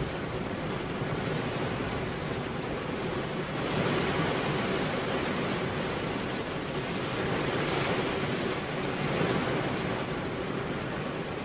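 Steady rain falling on a car's window glass, a dense even hiss that swells louder twice, about four seconds in and again around eight to nine seconds.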